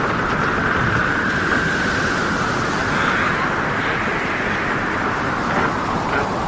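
Storm at sea: a steady, dense roar of wind and rough water, with a windy whistling tone that drifts slightly in pitch.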